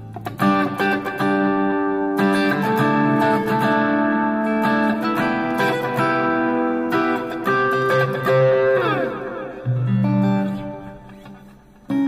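Guitar with a clean tone played back through Presonus Eris 3.5 studio monitors: picked notes and chords, with downward slides about nine seconds in. The notes then ring out and fade before new notes start near the end.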